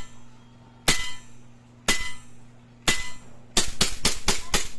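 Double Bell M92 Taurus gas airsoft pistol test-firing: three single sharp shots about a second apart, then a fast string of about seven shots.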